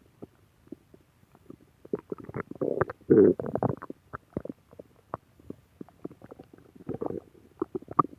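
Human stomach growling: a run of short gurgles and pops, loudest in a burst about three seconds in, with another burst near the end.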